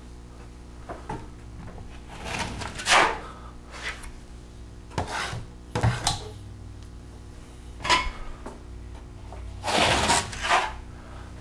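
Drywall knife scraping joint compound across a wall in a series of short wiping strokes, laying on a skip-trowel texture. The strokes come in separate scrapes, the longest and loudest about ten seconds in.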